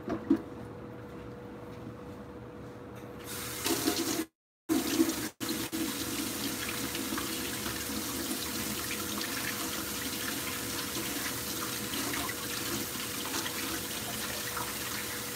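Kitchen tap running into a sink. It comes on about three seconds in and then runs as a steady rush of water, with a brief cut-out of all sound just after it starts.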